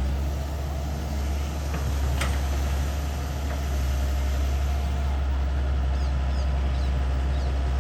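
Long-reach IHI excavator's diesel engine running steadily, with a couple of short metallic knocks about two seconds in.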